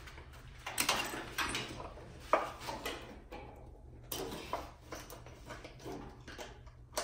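Hands working plastic wiring connectors and loom on an engine: a scatter of light clicks and knocks, with rustling of wires between them.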